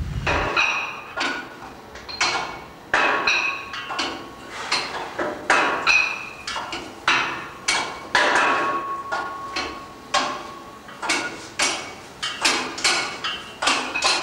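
Wind buffeting the microphone for the first half second, then repeated sharp metallic clanks, each with a brief ring, coming irregularly about one to two a second.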